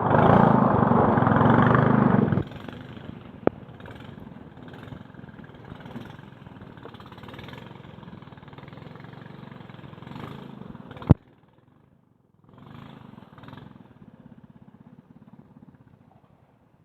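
A small boat's motor running: loud for the first couple of seconds, then quieter and steady. There are sharp clicks a few seconds in and about eleven seconds in, and the sound drops out briefly after the second click before the motor is heard again, fainter.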